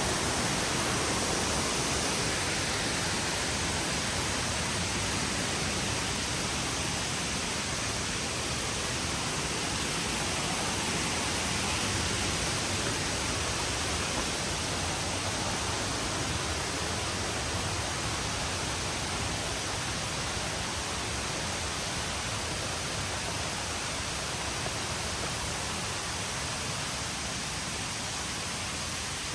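Steady rush of a waterfall's flowing water, an even noise that slowly grows a little fainter.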